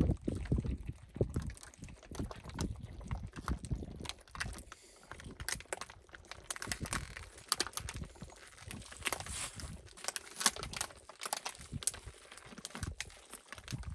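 Several people gulping down water from plastic water bottles held upside down, with irregular swallowing sounds and the thin plastic bottles crinkling.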